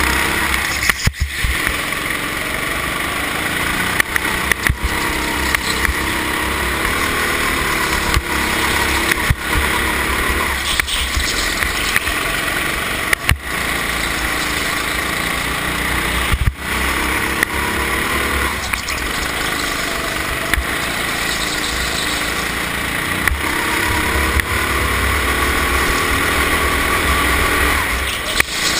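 Go-kart engine heard from the kart itself, running hard at racing speed, its revs rising and falling again and again as it brakes and accelerates through the corners. Several short, sharp clicks come through at odd moments.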